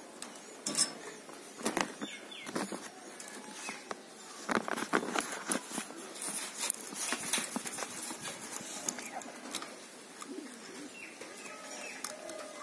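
Irregular clicks and rustling from wiring bamboo slats by hand: pliers and tie wire click against the bamboo and the plastic sheeting rustles. The clicks are thickest in the middle stretch.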